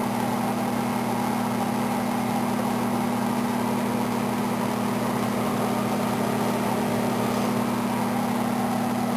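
Microwave oven running: a steady, unchanging low hum.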